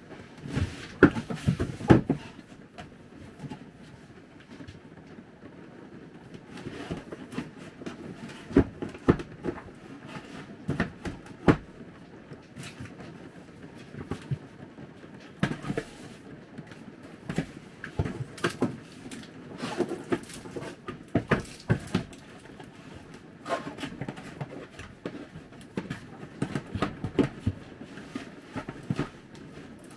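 Irregular knocks, clunks and rustling as objects are handled and put away during cleaning inside a small camper trailer, with the sharpest knocks about a second in.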